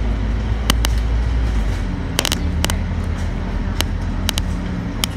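Scania DC9 five-cylinder diesel engine of a Scania K310UD bus running steadily while the bus is under way, heard from inside the bus. Sharp clicks and rattles come through it, several times and some in quick pairs.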